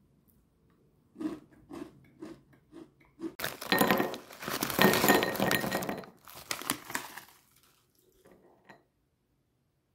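Round ramen-noodle snack pieces poured from a foil bag into a small ceramic bowl: a few separate clicks and rustles first, then about four seconds of dense clattering as the pieces pour in and land, tailing off near the end.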